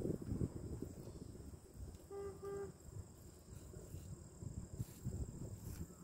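A vehicle horn gives two quick short beeps about two seconds in.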